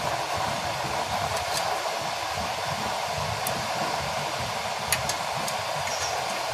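Blower fan forcing air into a used-oil burner stove: a steady rushing hiss. A few light metallic clicks as a metal rod touches the burner, the sharpest about five seconds in.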